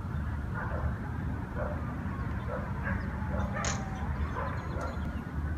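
A dog barking repeatedly, about once a second, over a steady low rumble, with one sharp click a little after halfway.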